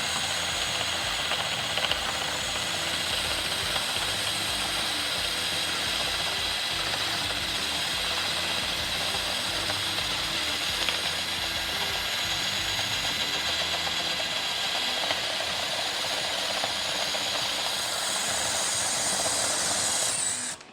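DeWalt DCD1007 18V brushless hammer drill in first gear, boring a 38 mm spade bit into wood under load. It runs steadily for about twenty seconds and stops suddenly near the end.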